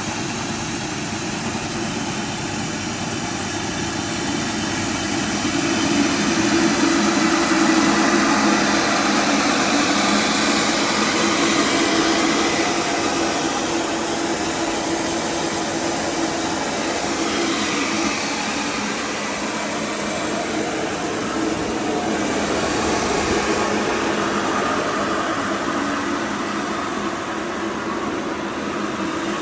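Rice milling machine running steadily, a dense mechanical whirring noise that swells somewhat louder from about six to thirteen seconds in.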